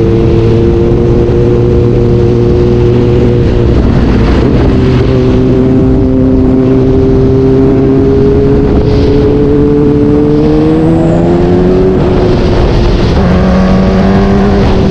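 Sport motorcycle engine running hard at high revs with a steady tone. The pitch drops about four seconds in, as at an upshift, then climbs again as it accelerates.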